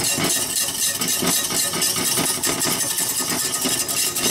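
Wire balloon whisk beating white sauce in a metal saucepan, its wires scraping and clicking against the pan in rapid, steady strokes as the sauce thickens.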